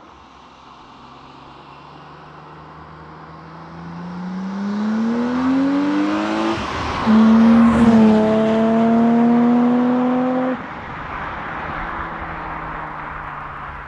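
BMW E30's M20B30 straight-six under acceleration: the note climbs steadily, breaks for an upshift about six and a half seconds in, then pulls again louder in the next gear before the throttle closes abruptly about ten and a half seconds in, leaving a quieter steady drone.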